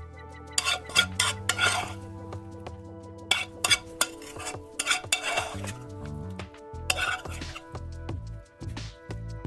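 Spoon scraping and clinking against a pan and dish as the minced-meat mixture is scooped out, in several short bursts, over steady background music.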